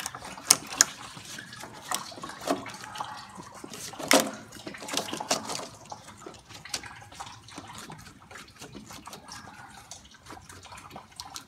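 Rubber upper radiator hose being twisted and worked off the radiator neck by hand: scattered clicks, rubbing and scraping, with a few sharp knocks near the start and about four seconds in.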